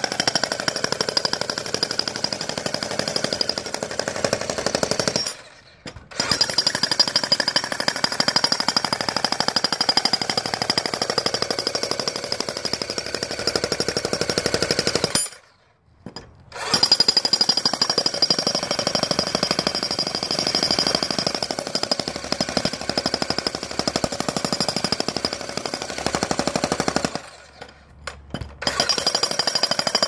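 Bosch Brute electric breaker hammer pounding through a concrete sidewalk with its chisel bit: a fast, steady hammering. It stops for a second or so three times, about five, fifteen and twenty-seven seconds in.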